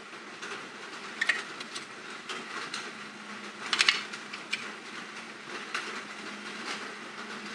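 Light clicks and taps of small metal parts being handled as a gear is fitted onto its bronze-bushed stud. The loudest is a quick cluster of clicks about four seconds in, with a faint steady low hum underneath.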